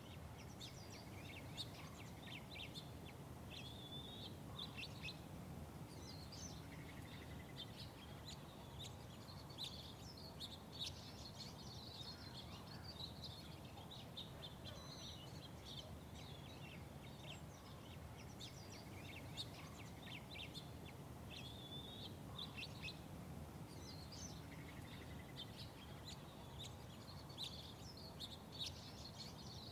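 Small birds chirping in many quick, overlapping calls, over a steady low background rumble.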